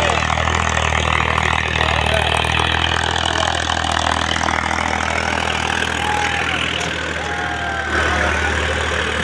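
Farmtrac tractor's diesel engine running under load as it pulls in a tractor tug-of-war: a steady, loud low drone.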